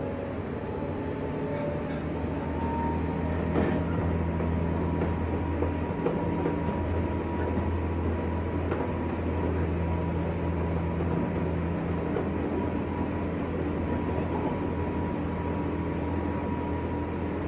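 A JR West 201 series chopper-controlled electric train running, heard from inside a motor car. There is steady wheel and track noise, with a constant motor hum and a thin whine held at one pitch.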